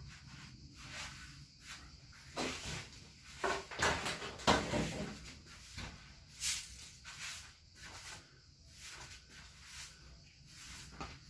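Irregular rustling, scraping and knocking of household items being moved and handled, with footsteps; the busiest stretch comes about four seconds in.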